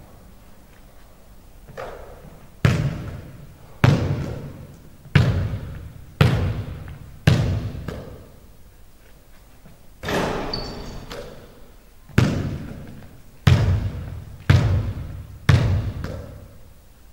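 Basketball bouncing on a hardwood gym floor, about eleven sharp thuds at uneven spacing of roughly a second, with a pause around the middle. Each thud rings on in the echo of a large empty hall.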